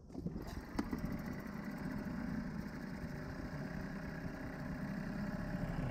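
Small outboard motor on an inflatable dinghy running steadily, getting slightly louder toward the end, with a single click about a second in.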